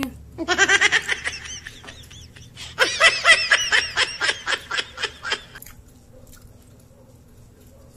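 A person laughing in two bouts of quick, rhythmic ha-ha pulses, about five a second; the second bout is the longer one.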